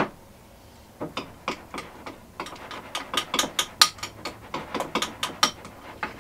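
A quick run of sharp ratchet-like clicks from something worked by hand at the kitchen counter, a few scattered clicks at first, then several each second from about two and a half seconds in.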